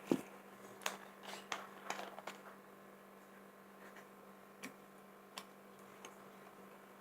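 Scattered light clicks and taps, about eight in all and most of them in the first two and a half seconds, from containers and utensils being handled, over a steady low electrical hum.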